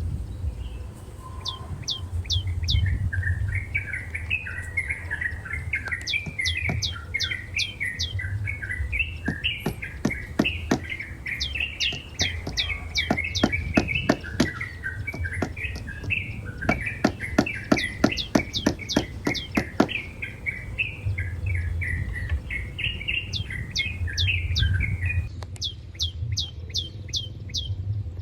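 A flock of Oriental pratincoles calling on migration: many overlapping chattering chirps, broken several times by quick runs of sharp, high, falling notes.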